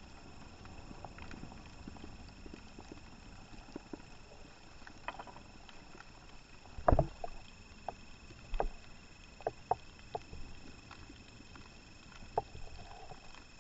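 Underwater ambience picked up by a diver's camera: a low steady rumble with scattered sharp clicks and knocks, the loudest about seven seconds in and several more between about eight and ten seconds.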